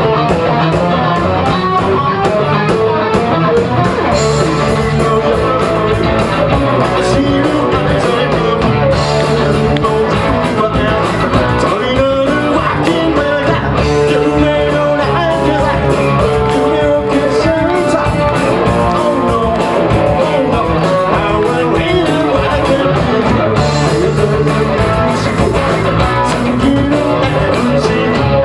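Rock band playing live, electric guitars to the fore over a steady beat, with no break.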